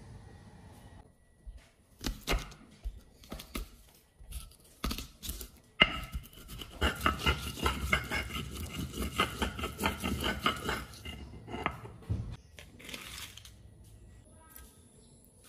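Stone pestle on a stone mortar (Indonesian cobek and ulekan). First a few separate knocks as garlic cloves and coriander seeds are crushed, then about six seconds of rapid grinding strokes, stone rubbing and tapping on stone. Near the end there is a softer scrape as the paste is gathered.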